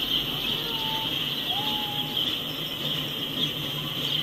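Slow freight train of intermodal well cars rolling past, a steady low rolling noise under a constant high hiss. Two faint short chirps come about one and two seconds in.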